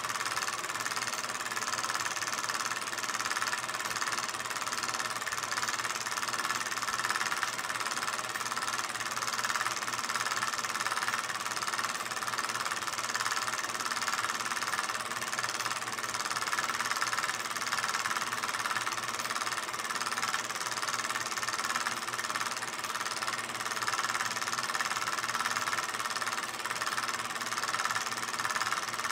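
16mm film projector running, a steady fast mechanical clatter that does not change.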